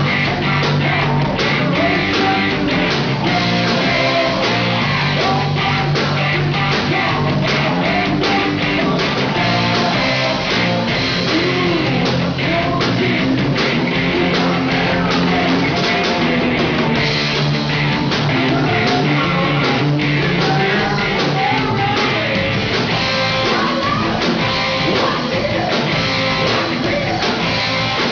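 Live rock band playing: electric guitars, bass guitar and a drum kit, with steady drum beats under the guitars.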